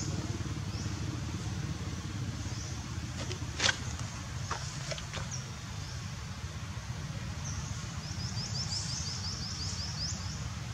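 Outdoor background of a steady low rumble, with a sharp knock about three and a half seconds in and a quick run of about ten short high chirps near the end.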